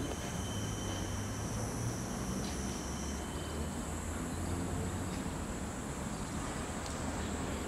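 Steady outdoor background of a low rumble with a thin, high insect-like buzz; the highest buzz stops about three seconds in.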